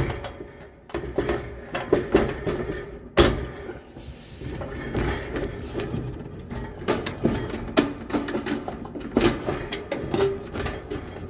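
Repeated metallic clinks and knocks from hands working on a Kenmore dryer's heating element housing, pulling wire connectors off and shifting the sheet-metal housing, with a sharper knock about three seconds in.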